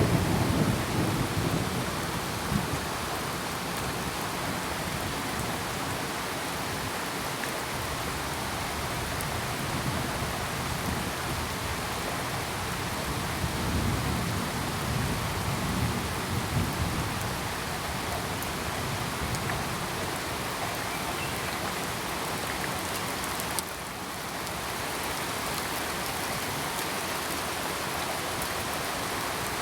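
Steady rain falling, with low rolling thunder rumbling near the start and again around the middle.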